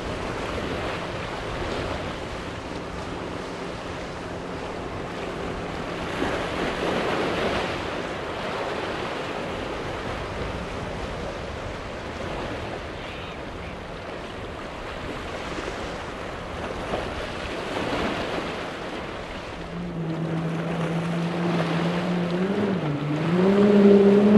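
Water rushing and waves breaking around a boat hull, with wind on the microphone and the faint steady note of a Cobia's single Yamaha 150 outboard. About twenty seconds in, the much louder engine note of a Wright Performance go-fast boat's twin Mercury Racing outboards comes in, dipping and then rising in pitch as the boat powers through the chop.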